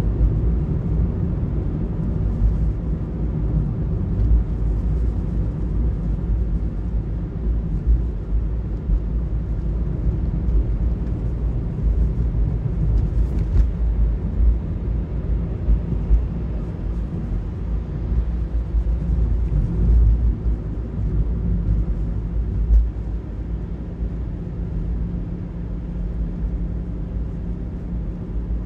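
Car driving on a city road, heard from inside the cabin: a steady low rumble of engine and tyres that eases slightly in the last few seconds.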